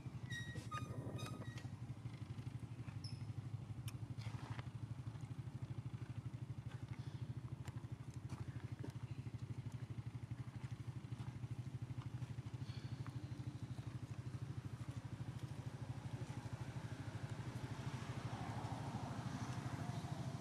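A steady low engine hum with a fast, even pulse, like a motor idling, with a few short high chirps about a second in.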